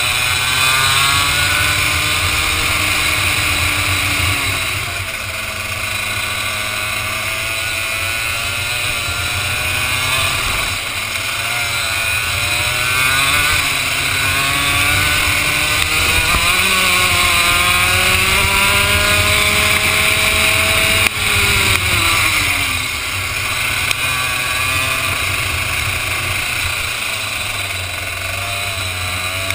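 Vortex ROK two-stroke kart engine lapping at racing speed, its pitch climbing on each straight and falling off into the corners several times, with a sharp drop about three quarters of the way through. A steady hiss runs underneath.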